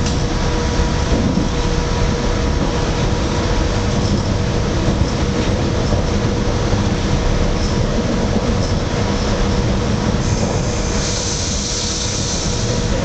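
Passenger train running at speed, heard from inside the car: steady rumble of wheels on rail with a constant hum over it. A rush of hiss comes in for about two seconds near the end.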